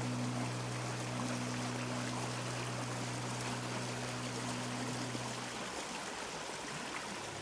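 Shallow stream rushing over rocks: a steady, even wash of flowing water. Under it a low, held musical tone fades out about six seconds in.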